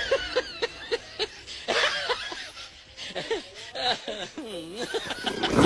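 A person laughing: a quick run of short, evenly spaced laugh pulses in the first second, then more laughs that swing up and down in pitch. A loud bump comes right at the end.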